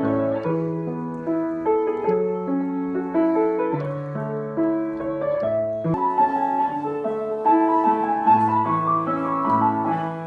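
Background music: a piano piece of sustained notes and chords, with the notes changing every half second or so.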